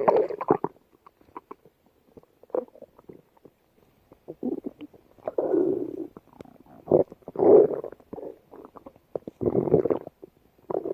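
Stomach rumbling: an irregular run of gurgles and growls, several lasting about half a second to a second, with small pops and clicks between them.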